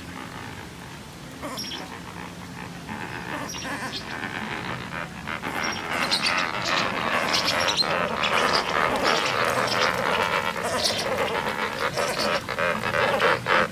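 A flock of flamingos honking, with many short, nasal, goose-like calls overlapping. The calling grows busier and louder about halfway through.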